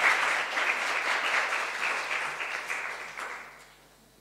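Audience applauding with many hands, fading out about three and a half seconds in.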